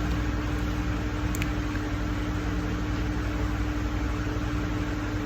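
Steady mechanical hum and hiss, like a fan or air conditioner running, with a faint steady tone through it.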